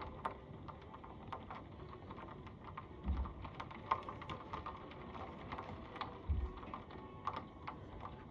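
Rain falling, with raindrops ticking irregularly on a window and the surfaces outside it. A dull low thump comes about every three seconds.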